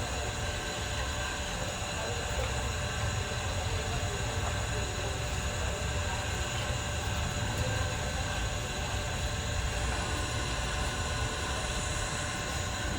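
Steady busy-street background: a constant low rumble with a haze of noise and faint, indistinct voices, without clear separate events.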